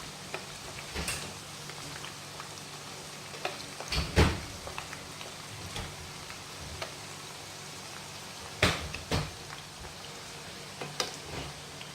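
Breadfruit pieces deep-frying in hot oil with a steady sizzle, broken by sharp knocks and clatters of kitchen utensils, the loudest about four seconds in and twice close together near nine seconds.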